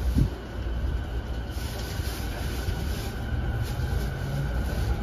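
JR 209 series (500 subseries) electric commuter train heard from inside the car: a steady low rumble with a thump at the start, then a low traction-motor tone that comes in about three seconds in and rises as the train begins to pull away.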